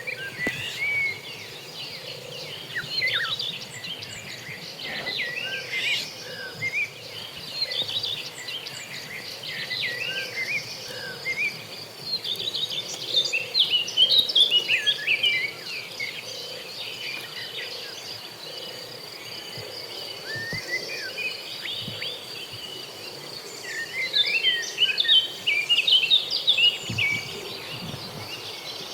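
Outdoor ambience of many small birds chirping in quick, overlapping calls over a steady high-pitched insect drone; the chirping is busiest in two spells, around the middle and near the end.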